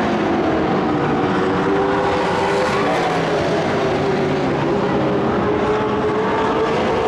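Several race truck engines running together at a steady, loud drone, their pitch drifting up and down a little.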